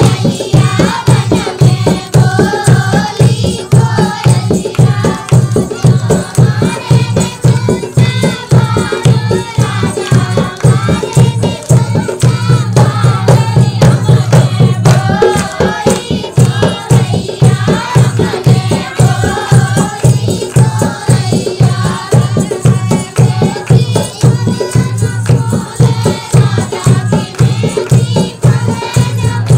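North Indian dehati folk dance song: singing over a fast, steady drum beat, without a break.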